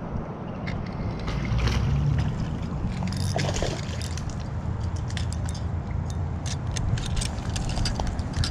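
A hooked small largemouth bass splashing and thrashing as it is reeled in and landed, over a steady low rumble, with many irregular light clicks and rattles through the second half.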